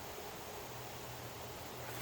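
Faint steady hiss with a low hum that grows a little stronger about half a second in; no distinct handling sounds stand out.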